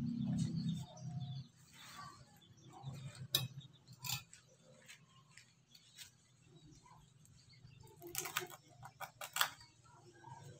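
Dry coconut husk fibre being torn and scraped off a sprouting coconut by hand and with a knife, heard as scattered crackling scrapes. A quick run of them comes about eight to nine and a half seconds in.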